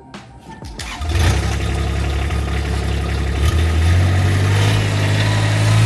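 A motor vehicle's engine starts about a second in and keeps running steadily with a low hum. Its pitch steps up slightly partway through.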